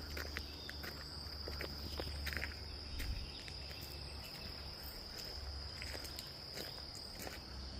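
A steady, high insect drone, like a chorus of crickets, with scattered footsteps on a path and a low rumble underneath.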